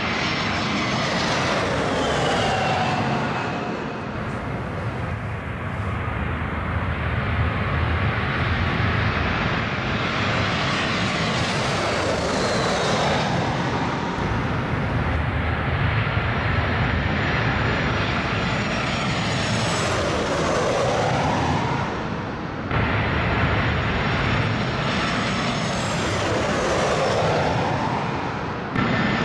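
Jet airliners on low final approach passing close overhead one after another: steady jet engine noise with a whine that falls in pitch as each one goes by, several times over. The sound jumps abruptly twice, once before and once near the end.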